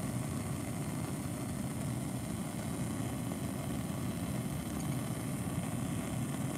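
Bunsen burner on its hot blue flame, collar open, burning with a steady low rush under a crucible.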